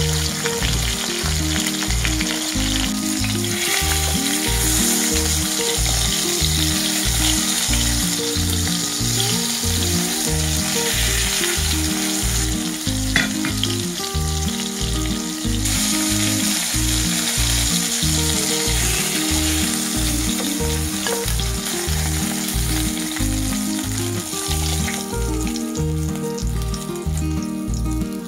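Rohu fish steaks sizzling steadily as they shallow-fry in hot oil in a wok, with background music playing under the sizzle.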